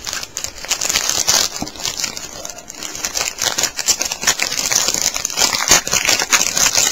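Foil wrapper of a Topps Finest trading-card pack crinkling and tearing as it is opened by hand: a dense run of sharp crackles.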